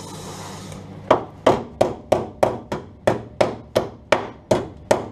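Hammer striking the steel sill panel of a car in steady blows, about three a second and roughly a dozen in all, each sharp and metallic with a short ring. The blows begin about a second in, after a brief steady hiss.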